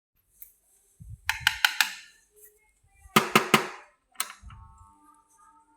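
Sharp clicks and knocks from the controls and body of an 18-inch HC-I18M5 electric fan being handled and switched, in a quick group of three, another group of three, then a single click. Near the end a faint steady motor hum begins as the fan starts.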